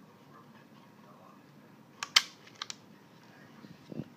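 A few sharp metallic clicks from the disassembled NSG Rapide paintball pistol's exposed mechanism as it is handled: one loud snap about two seconds in, closely followed by two lighter clicks, then a dull thump near the end.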